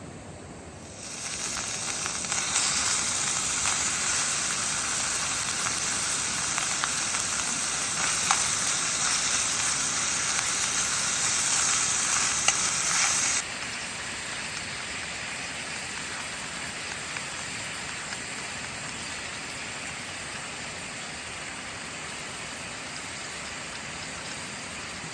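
Food sizzling in a frying pan over a camp stove, starting about a second in; about halfway through the sizzle drops suddenly to a quieter, steady level.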